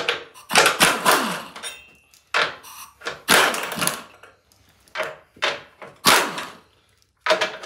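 Pneumatic impact wrench run in several short bursts, undoing the nuts on a bumper.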